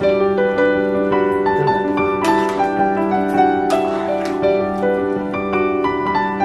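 Background piano music: a gentle melody of held notes over a steady low note.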